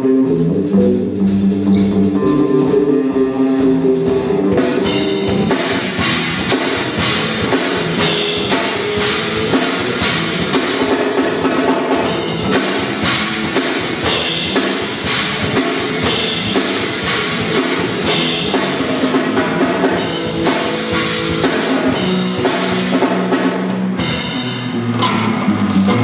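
Band music with a drum kit and guitar. Held notes open it, the drum kit comes in about four seconds in with a steady beat, and the drums drop out near the end.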